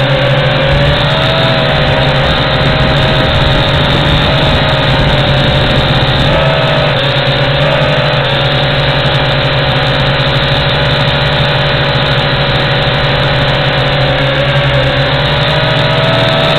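WLToys Q222G toy quadcopter's motors and propellers whining steadily and loudly, heard from its own onboard camera. The pitch wavers up and down a little as the motor speeds adjust in altitude-hold flight.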